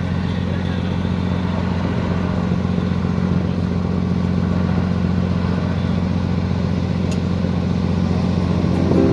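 Diesel truck engine running as the cargo truck drives off and pulls away, a steady low drone that grows slightly louder.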